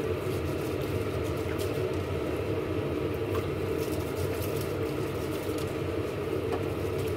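A steady low hum runs throughout, with a few faint splashes as a hand rubs and swishes rice in a steel bowl of water.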